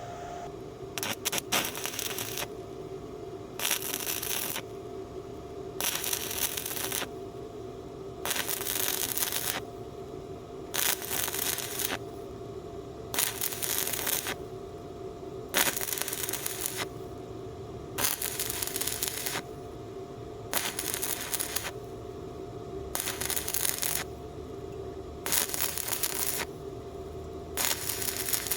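BestArc MIG145 welder striking an arc in a dozen or so short bursts, about a second each and every two seconds or so: the crackle of wire-feed stitch welding. A steady hum runs underneath.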